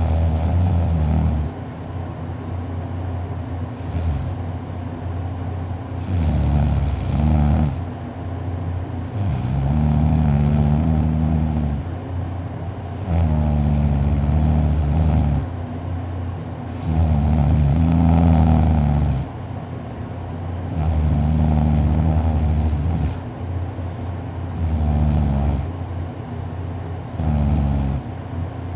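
A person snoring heavily in sleep: a low snore on each breath, about every three to four seconds, each lasting one to two seconds, with quieter breathing between, about eight snores in all.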